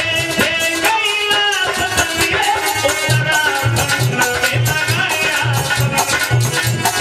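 Indian devotional folk music: a harmonium melody over a steady dholak-style drum beat, with bright metal jingles from a chimta (jingling fire-tongs) keeping the rhythm.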